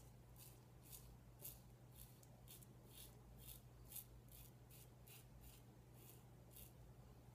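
Faint, short scraping strokes of a slant safety razor cutting through stubble and lather on the neck, about three strokes a second.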